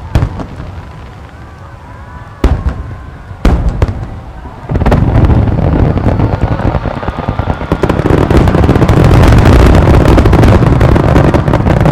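Star mine fireworks barrage: a few separate shell bursts, then from about five seconds in a dense rapid-fire run of booms and crackling that grows louder again around eight seconds in.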